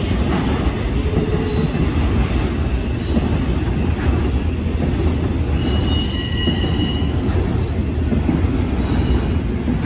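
CSX intermodal freight train's container and trailer cars rolling past, a steady rumble of wheels on rail. Brief high-pitched wheel squeal rises over it about a second and a half in and again around six seconds.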